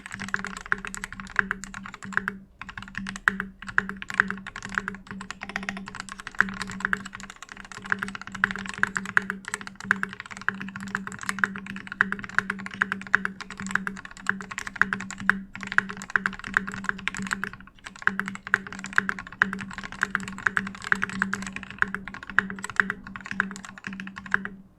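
Continuous fast typing on a custom mechanical keyboard with lubed Gateron Giant switches, a brass plate and KAT Milkshake keycaps: a dense stream of key clicks with louder single strikes every second or so. The typing stops just before the end.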